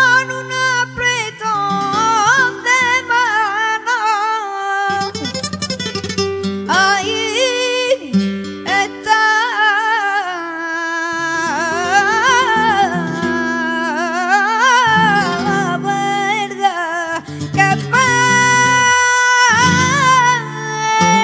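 A boy singing flamenco fandangos into a microphone, in long ornamented lines that waver up and down in pitch, over guitar accompaniment.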